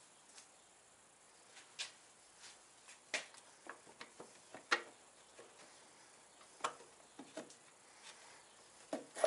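Motorcycle drive chain links clicking and clinking against the rear sprocket as the chain is worked off the sprocket by hand: a dozen or so faint, irregular clicks.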